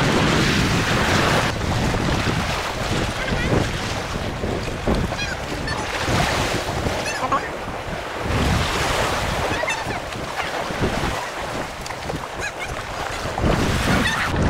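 Wind buffeting the microphone over choppy water lapping and splashing against wooden pilings.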